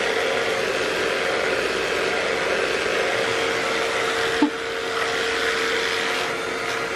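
Vacuum cleaner running steadily, an even whooshing noise with a constant humming whine, and a brief knock about four and a half seconds in.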